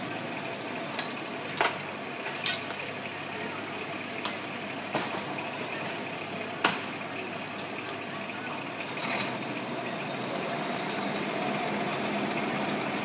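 Steady running of fire trucks' diesel engines at a working fire, with about half a dozen short sharp cracks in the first half; the engine noise grows a little louder from about two-thirds of the way in.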